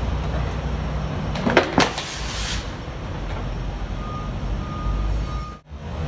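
A car tyre rolls onto a plastic jug, which gives way with a few sharp cracks and a short crunch about a second and a half in, over the steady low rumble of the car.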